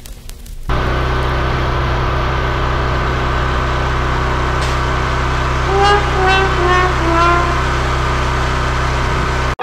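Pressure washer running steadily, a constant low motor hum under the hiss of the pump and spray. It comes in suddenly under a second in. Near the middle there is a short run of about four falling notes.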